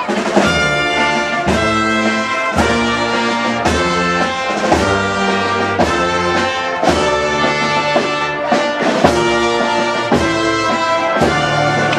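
Brass band playing a slow processional march, with chords struck on a steady beat about once a second.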